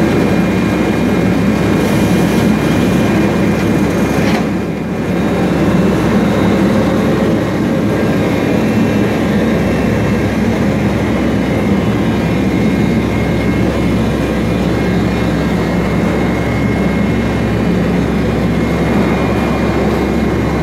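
Machinery running with a steady drone and a faint steady high whine, dipping briefly about four and a half seconds in.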